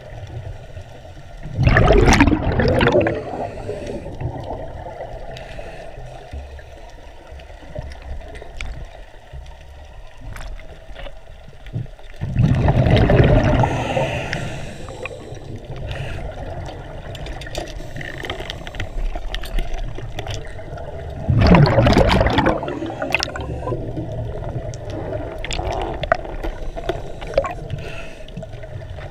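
Scuba regulator breathing heard underwater: three loud rushes of exhaled bubbles about ten seconds apart, with a quieter steady hiss and faint clicks between them.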